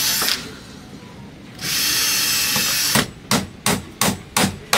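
Cordless drill drilling into wood in two runs, the second about a second and a half long, followed by six short sharp bursts at about three a second near the end.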